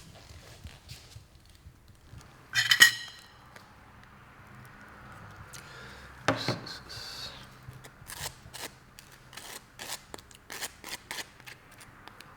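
Light clicks and knocks of small objects being handled, over a faint low hum. About three seconds in comes a short, high ringing sound, the loudest moment, and a sharper knock comes about six seconds in.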